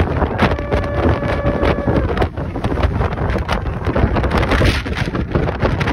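Strong wind buffeting the phone's microphone: a continuous rumble with crackling gusts. A steady pitched tone starts about half a second in and holds for about a second and a half.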